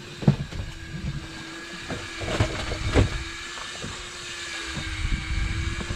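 A few sharp knocks and thumps of gear against a small fishing boat, strongest about three seconds in, over a low rumble and a steady hum.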